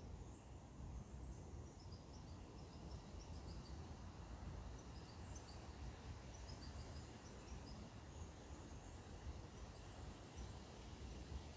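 Quiet outdoor ambience: a low steady rumble with faint, high bird chirps scattered through, some in short falling runs.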